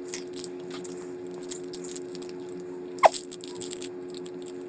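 Light crinkling and small clicks of a playing-card box in its cellophane wrap being turned over in the hands, with a short falling squeak about three seconds in. A steady background hum runs underneath.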